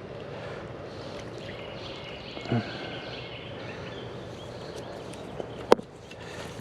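Steady outdoor background noise with a brief low sound about two and a half seconds in and one sharp click near the end.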